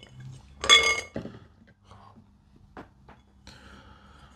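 Kitchenware clinking during fruit-salad preparation: one loud ringing clink about a second in, then a few faint taps and a short soft rustle near the end.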